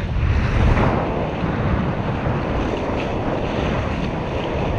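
Wind buffeting the onboard microphone over water rushing along the hulls of a Tornado racing catamaran under sail, slightly louder in the first second.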